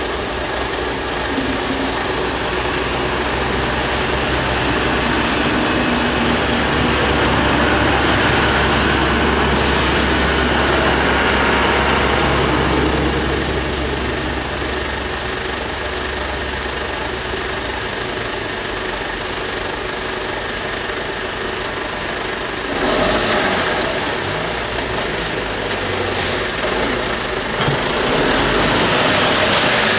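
A DB class 612 diesel multiple unit running over a level crossing: a steady low diesel drone and wheel noise that swell to a peak about ten seconds in and then die away. Near the end, cars pull away across the crossing.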